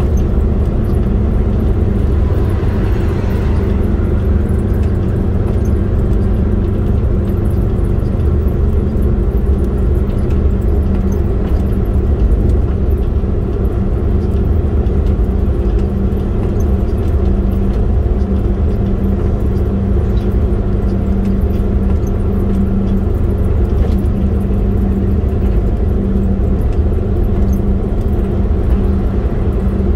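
Steady driving noise of a road vehicle under way: a low, even engine hum over road rumble.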